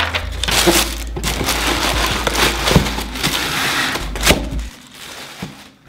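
Tissue paper rustling and crinkling as it is pulled out of a cardboard shoebox, with a single sharp knock about four seconds in.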